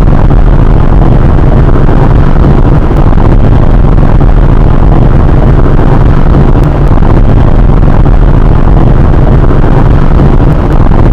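Loud, steady rumbling noise of a running vehicle, heavily distorted and mixed with wind on the microphone.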